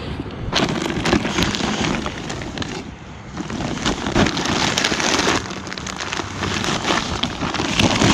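Rustling and crackling of items being handled and sorted, with many small clicks throughout and a brief lull about three seconds in.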